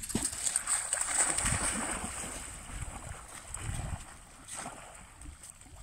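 Golden retriever splashing as it wades from a pebble beach into a river and swims out, the splashing loudest in the first couple of seconds and then fading.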